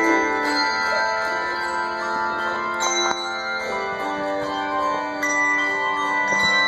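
Handbell choir playing a piece: chords of ringing bells sustain and overlap, with fresh notes rung several times as the harmony changes.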